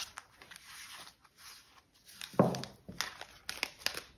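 Cards and small objects being handled on a table: scattered sharp taps and rustles, with one louder thump about two and a half seconds in.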